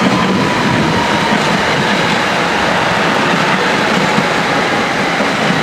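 Metro-North electric multiple-unit commuter train passing close by at speed: a steady loud rush of wheels on rail with some clickety-clack over the joints. A faint high whine sinks slightly in pitch over the first few seconds. No horn is sounded.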